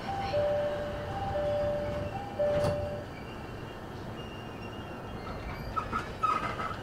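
JR 209 series train's door-closing chime: a two-tone high-low chime sounding three times, with a single knock near its end as the doors shut. Short clanks and hisses follow near the end.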